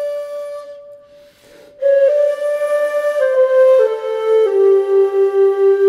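Background stock music: a solo melody on a wind instrument. A held note fades away, and after a brief pause a slow phrase of long held notes steps downward.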